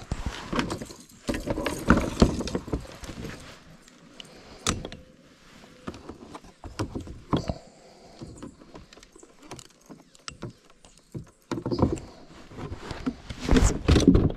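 Irregular knocks, clicks and rattles of fishing gear handled against a plastic kayak, with busier clusters near the start and near the end and a sharp single click about five seconds in.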